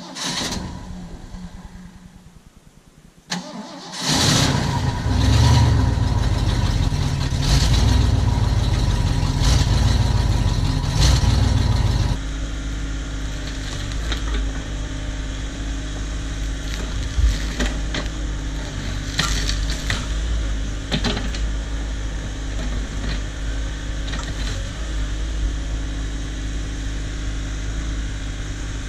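Cat 304 mini excavator's diesel engine starting about four seconds in, after a click and some faint ticking, and running loud for several seconds. At about twelve seconds it drops to a steadier, quieter run.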